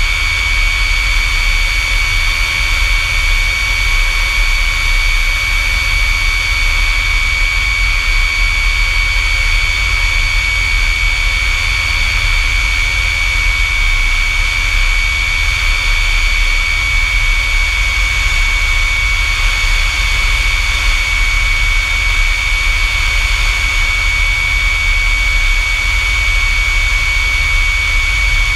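F-100 Super Sabre's J57 turbojet running at a constant setting: a steady high whine over a deep rumble and rushing hiss.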